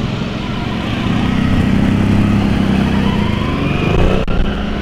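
Off-road vehicle engine running at low speed as it rolls along, growing louder from about a second in, with a short rise in pitch near the end. A sharp knock comes near the end.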